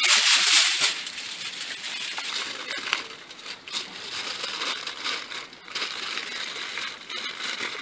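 Aluminium foil crinkling and crumpling as it is folded by hand into a pouch around sausages. It is loudest in the first second, then goes on as softer rustles and small crackles.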